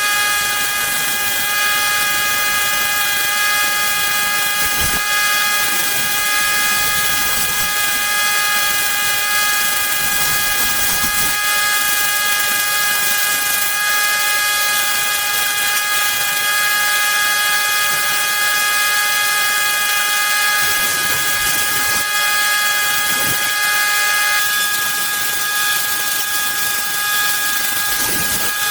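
An electric woodworking power tool running steadily, its motor giving a constant high whine over a hiss, with a few faint knocks.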